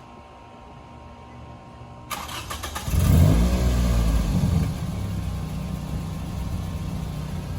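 Car engine cranking and starting about two seconds in, flaring briefly as it catches, then settling into a steady idle.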